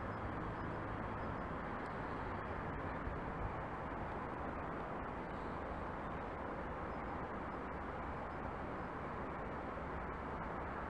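Steady, even outdoor rumble of distant trains and road traffic at a railway station, with no single pass, horn or wheel click standing out.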